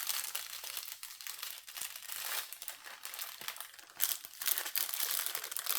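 Plastic packaging crinkling and rustling as it is handled and opened, getting louder about two-thirds of the way through.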